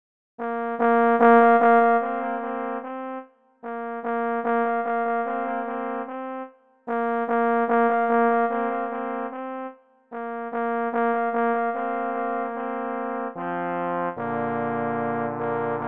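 Trombone trio playing the opening of a slow arrangement: a short phrase of about three seconds heard four times, each followed by a brief gap. Near the end a fuller part with lower notes comes in.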